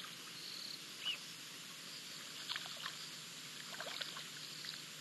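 Faint bush ambience: a few short, high bird chirps, about a second in and again around two and a half and four seconds in, over a steady hiss.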